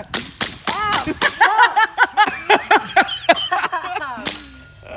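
An airsoft gun fires a rapid string of shots, about three to four a second, while a man yelps in short cries as the pellets hit him.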